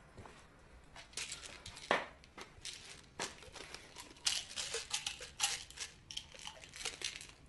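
Hands handling medicine packaging at a counter: an irregular string of small crinkles, rustles and clicks starting about a second in, with one sharper click about two seconds in.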